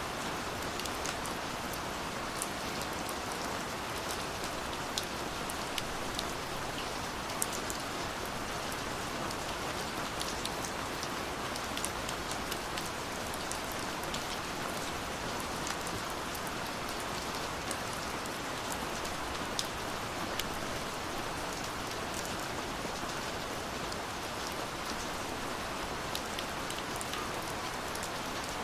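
Steady rain falling, a dense even hiss with scattered sharp drop ticks.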